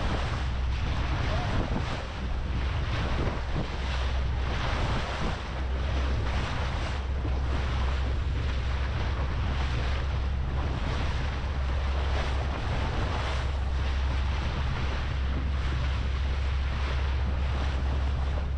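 Small open fishing boat running at speed: the steady low drone of its motor under water rushing past the hull, with wind buffeting the microphone.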